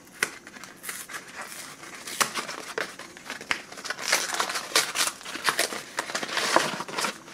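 MRE entrée pouch being slid and worked out of its tight cardboard box: cardboard scraping and rustling in irregular strokes, with a sharp click about halfway and busier, louder rustling in the last few seconds.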